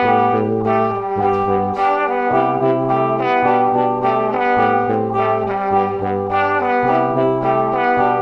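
Background music, with a low bass note that changes about once a second under sustained chords.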